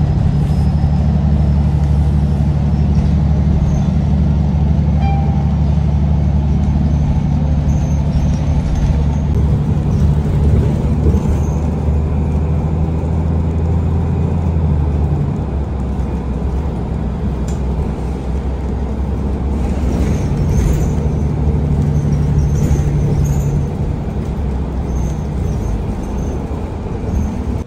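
Ride inside a city bus: a steady low drone from the bus's running gear with road noise, its pitch shifting about halfway through.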